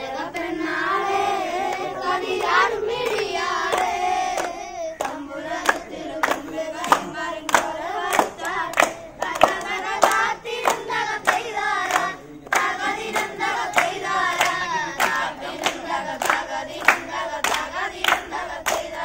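A group of boys singing together without instruments while clapping their hands to the beat. The claps become steady at about two a second from about five seconds in.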